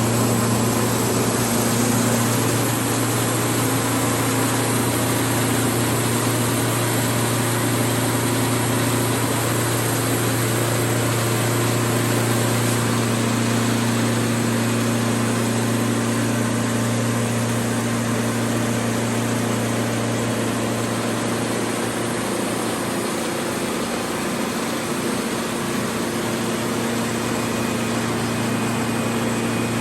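An engine running steadily at an even speed: a low hum with a few steady tones over it.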